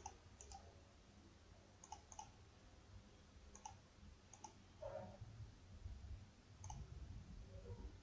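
Faint computer mouse button clicks, a few at irregular intervals, some in quick pairs.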